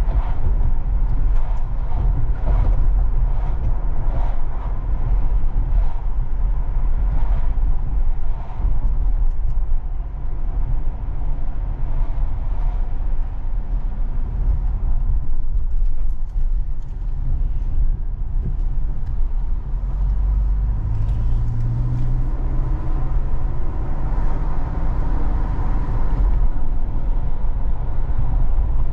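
A car on the move: a steady low rumble of road and engine noise, with the engine note climbing briefly a little past the middle.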